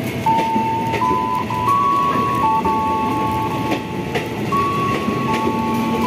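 Ex-JR 205 series electric commuter train pulling slowly out of the platform, its running noise joined by steady high tones that step up and down in pitch every second or so.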